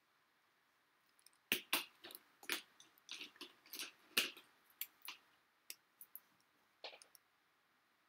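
Irregular plastic clicks and rattles of pens being handled: a ballpoint is set down and another pen is picked up. A quick flurry of sharp clicks and taps starts about a second and a half in and thins out to a few single clicks by about seven seconds.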